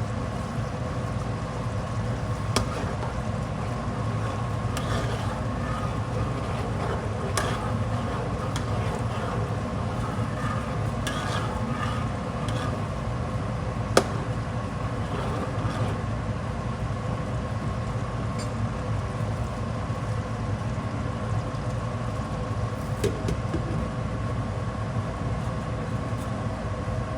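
A steady hum that holds a few constant tones, with scattered light clicks and knocks and one sharp click about halfway through.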